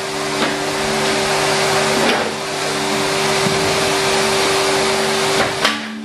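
Numatic Henry Wash vacuum running steadily: a motor hum with a rush of air, broken by a few knocks, the sharpest near the end.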